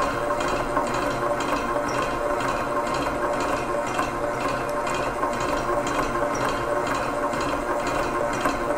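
Innofood KT7600 stand mixer running steadily at speed 6, its silicone beater creaming butter and caster sugar in the bowl, with a steady motor hum over a wet churning hiss.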